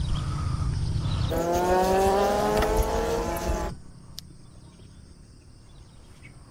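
An engine revving up, its pitch rising steadily for about two seconds over a low rumble, then cutting off abruptly and leaving it much quieter.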